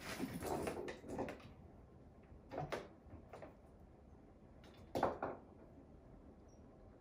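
A few light knocks and rustles in a small room: a cluster in the first second and a half, a couple more around three seconds in, and the loudest, a single sharp knock, about five seconds in.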